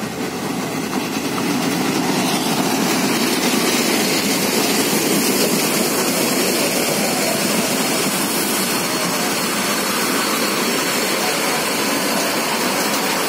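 A passenger train passing close by: a steady rush and rumble of its coaches rolling along the track. It grows louder over the first couple of seconds, then holds.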